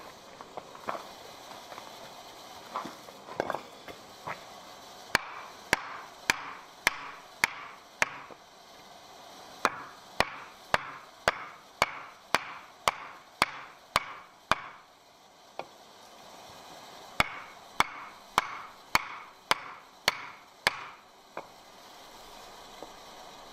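The steel blade of a hand-forged ice spud chopping into a pine block, sharp strikes about two a second in three runs, with a few softer knocks before them.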